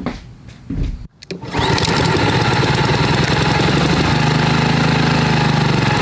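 Walk-behind lawn mower's small engine, cutting in about a second and a half in and then running steadily.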